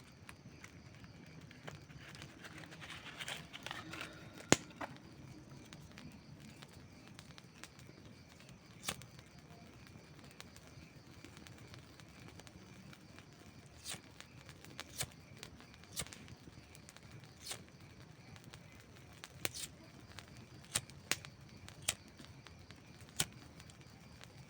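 Wood campfire crackling: scattered sharp pops and snaps over a low steady hiss of burning. A cluster of small crackles comes about three seconds in, then the loudest pop, and the pops come more often in the second half.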